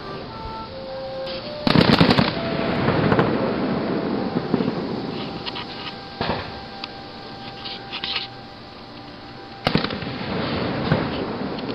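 Aerial fireworks going off: a loud, sharp burst about two seconds in, followed by a few seconds of crackling, then a couple of smaller pops and another loud burst near the end.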